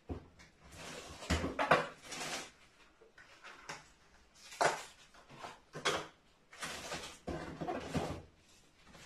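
Items being moved about inside an open refrigerator: a handful of separate rustles, knocks and clinks of containers being handled.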